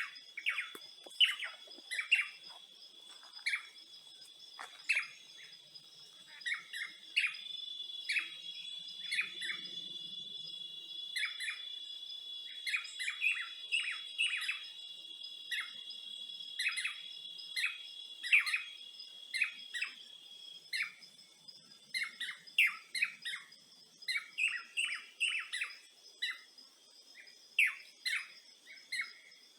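Birds chirping in quick, repeated short calls over a steady high-pitched insect drone. The drone grows louder for about a dozen seconds in the middle, then fades back.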